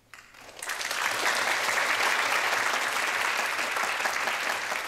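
Audience applauding, the clapping building up about half a second in and then holding steady.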